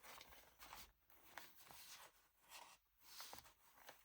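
Near silence with faint, scattered rustling and light ticks of paper being handled, a large glassine bag being moved into place on a journal page.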